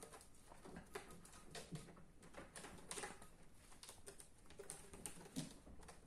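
Faint, irregular scratching and light clicking of ragdoll kittens' claws gripping a rope-wrapped cat-tree post and its carpeted platforms as they climb and tussle.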